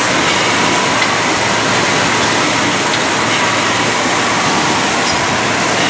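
Steady, loud mechanical din of a bottling line: conveyors and machinery running without pause, with a few faint ticks.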